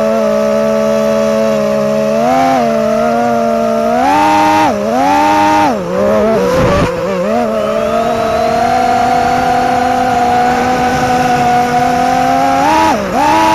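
FPV quadcopter's brushless motors whining steadily in flight, the pitch jumping up and dropping back with throttle changes a few times, around two seconds in, between four and six seconds, and again near the end.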